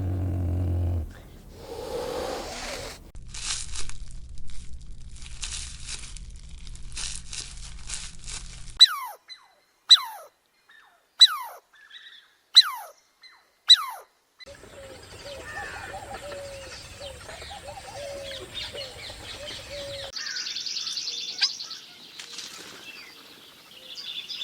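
A run of different animal calls: a low call ends about a second in, then five loud, short calls fall steeply in pitch, about one every second and a bit, followed by more calls and high chirping near the end.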